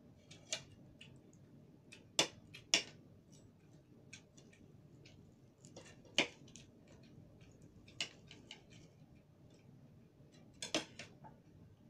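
Knife and fork clicking and scraping against a plate while cutting up crispy fried pork belly: scattered sharp clicks, the loudest about two seconds in, around six seconds and near the end.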